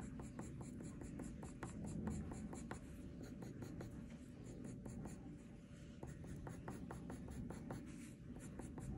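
Colored pencil hatching and cross-hatching on drawing paper: a Blick Studio wax-based pencil point scratching in quick short strokes, about four a second, faint.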